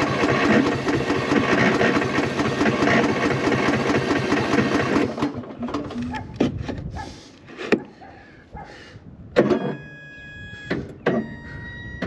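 Cub Cadet riding mower's engine being cranked over by its starter with the throttle at full, churning steadily without starting, then cut off about five seconds in. The mower is hard to start, and the owner blames a worn-out battery. A few clicks and two short electronic tones follow.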